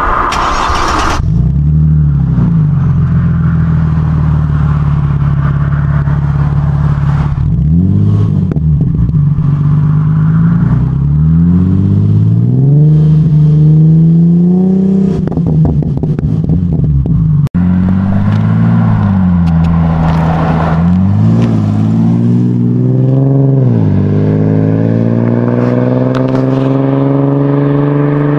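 Chrysler Crossfire SRT-6's supercharged 3.2-litre V6 idling and being revved through its new exhaust, heard from behind the twin tailpipes: a steady idle broken by short blips of the throttle and a few slower climbs in revs that fall back to idle, the longest near the end.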